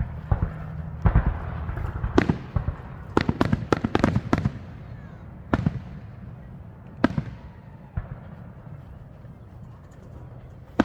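Fireworks going off: a scattered run of sharp bangs, each one echoing briefly. A fast cluster of bangs comes about three to four and a half seconds in, then single bangs follow further apart.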